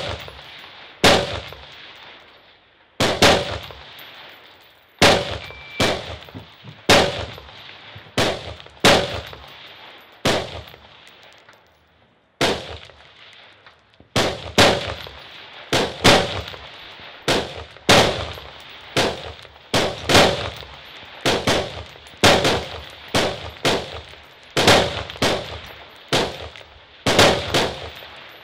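AR-15-style rifles firing shot after shot, about one a second, each crack trailing off in a ringing echo. There is a brief pause near the middle.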